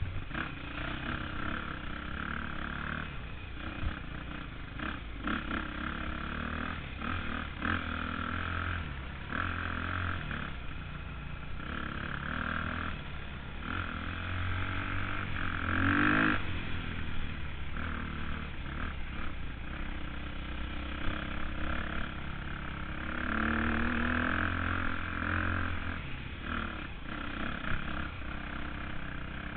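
KTM 250 dirt bike engine under a rider's throttle, revving up and dropping back every second or two. The revs swell louder about halfway through and again near the end.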